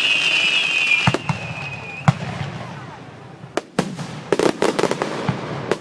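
Fireworks: a shrill whistling firework sounds with a slowly falling pitch and stops about two seconds in. Sharp bangs come around one and two seconds in, then a quick run of crackling pops near the end.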